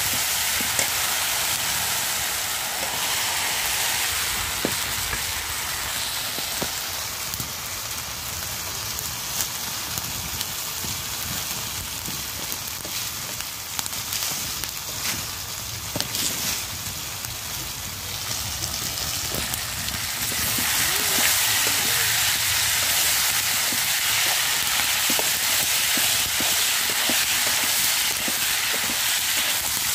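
Vegetables frying in oil in an iron karahi: a steady sizzle, with a metal spatula scraping and clicking against the pan. The sizzle grows louder about two-thirds of the way through.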